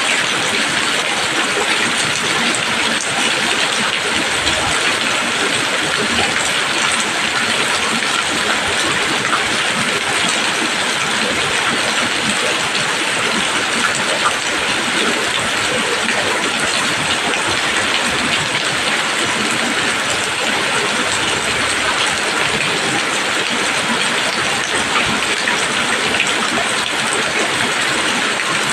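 Steady rain falling on leaves: an even, unbroken hiss of drops.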